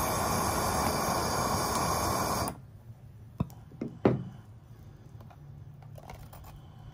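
Gas torch flame burning with a steady rushing noise, cut off suddenly about two and a half seconds in as the torch is shut off. A few sharp clicks follow.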